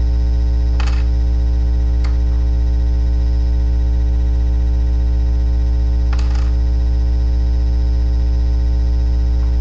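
Loud, steady electrical hum: a low buzz with many overtones that never changes. A few faint, brief rustles or clicks come through about a second in, at two seconds and around six seconds.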